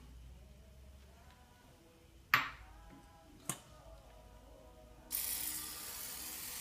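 Two sharp clicks, the first the louder, then near the end the steady hiss of an aerosol cooking spray coating a small nonstick frying pan.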